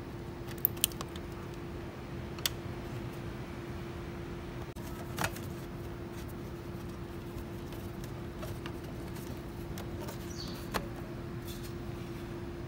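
A few sharp metallic clicks and clinks of tools and metal parts being handled, scattered over a steady hum; the loudest come as a quick pair about half a second in.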